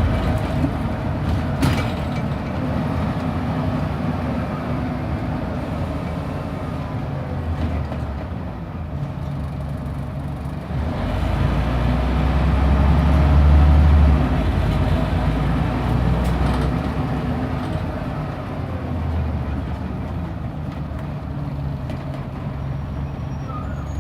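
Scania OmniDekka double-decker bus heard from on board as it drives, its engine drone rising and falling with the pull of the gears. It is loudest during a hard pull about halfway through, then eases off. There is a sharp knock about two seconds in.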